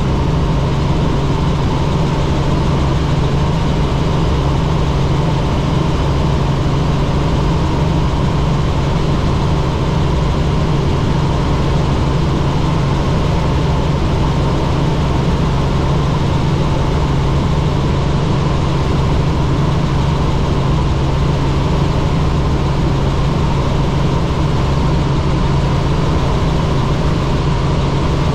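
Helicopter engine and rotor running steadily: a continuous drone with a strong low hum and a fainter steady higher tone.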